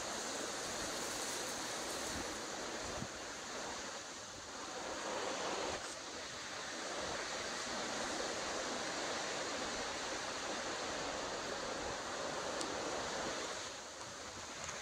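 Strong, gusty hurricane wind blowing through and thrashing palm fronds, a steady rush of noise that eases briefly twice, about four seconds in and near the end.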